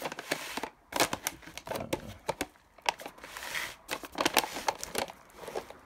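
Shiny printed plastic wrapping on a firework cake crinkling and crackling as it is handled and turned over, in irregular runs of sharp crackles with short pauses between.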